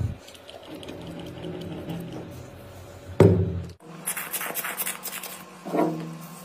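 Soft background music with a few pitched notes, over handling noise of a small motorcycle battery being turned in a metal pan. About four seconds in comes a run of short hissy puffs as a rubber air-blower bulb is squeezed at the battery's vents.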